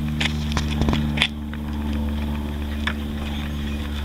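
A pull on the recoil starter cord of a cold Briggs & Stratton 190 cc mower engine: a brief rising whir about a second in, ending in a sharp click, without the engine catching. Another engine hums steadily underneath.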